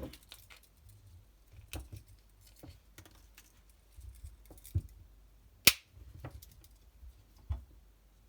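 Hands unpacking and handling small items: scattered light clicks and taps, with one sharp click a little past halfway.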